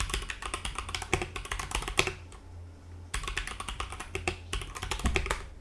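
Typing on a Redragon K630 Dragonborn 60% mechanical keyboard with red switches: rapid key clicks and clacks in two quick runs, with a short pause a little past two seconds in.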